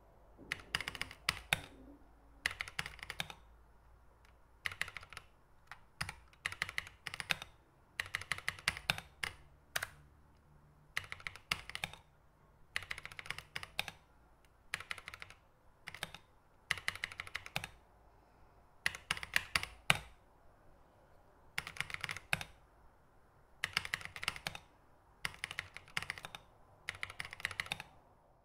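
Keys of a small mechanical numeric keypad being pressed: short bursts of rapid clicks, a burst every one to two seconds, with brief pauses between.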